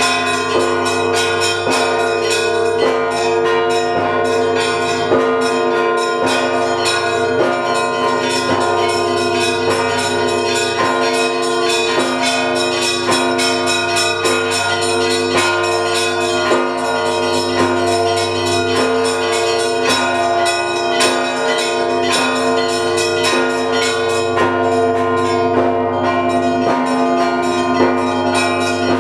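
Russian Orthodox Paschal bell ringing at the Trinity-Sergius Lavra: many bells struck in a quick, continuous pattern over the long hum of the larger bells, ringing to the evening service.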